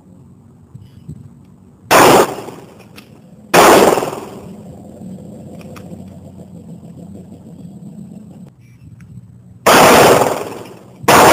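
Four pistol shots: two about two seconds in, a second and a half apart, then after a pause of about six seconds two more near the end, again about a second and a half apart. Each shot is very loud and trails off in a short echo.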